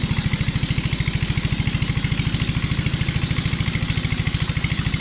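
Small riverboat's engine running steadily under way, with a fast, even chugging beat.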